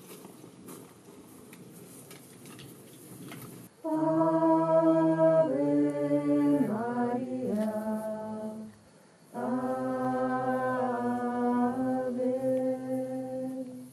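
Voices singing a slow chant of long held notes that step up and down in pitch. It comes in two phrases, starting about four seconds in, with a short break near the middle. Only a faint outdoor background comes before the singing.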